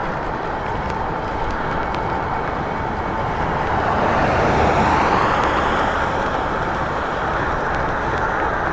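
Steady rushing noise of wind and road while riding a bike, swelling a little about four to six seconds in.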